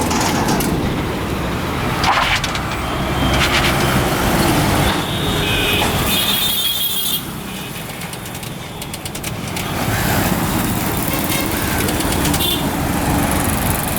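Motor vehicles running amid street traffic noise, with a brief lull about halfway through.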